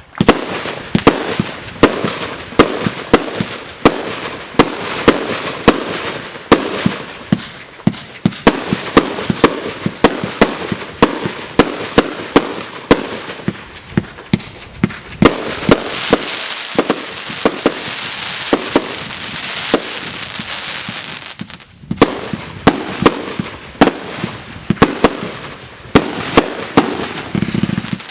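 Fireworks going off in a rapid series of sharp bangs, about two or three a second, with crackling between them. Past the middle the bangs give way to a dense crackle, then a brief lull before the bangs resume.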